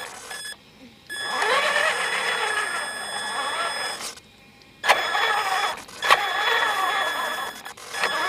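The Tonka Summit's drive motor whines in stretches as it is driven, the pitch rising and falling with speed. It cuts out twice for about half a second and comes back with a sharp start.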